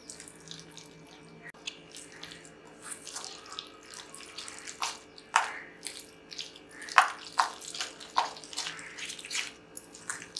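Thick onion and gram-flour batter being beaten with a spoon in a steel bowl: irregular wet squelches and slaps, with a few louder smacks in the middle. The batter is being whipped after baking soda and a spoonful of hot oil were added.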